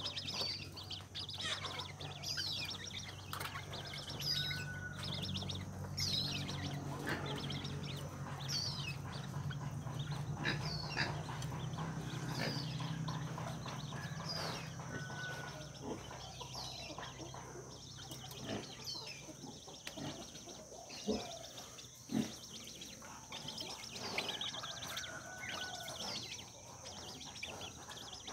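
Young purple swamphens peeping: short, high, falling chirps repeated about once a second. A low hum runs under them through the first half, and a few sharp knocks come later on.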